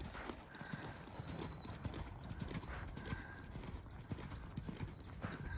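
A horse's hooves clip-clopping in an uneven rhythm, with a brief high tone heard about three times.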